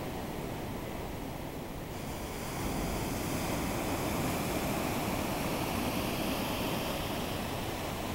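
Ocean surf: breaking waves and white water washing in, a steady rush that grows louder about two and a half seconds in as a wave breaks.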